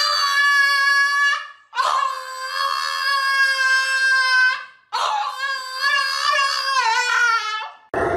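French bulldog howling: a long howl that ends about a second in, then two more long howls, the last one wavering in pitch.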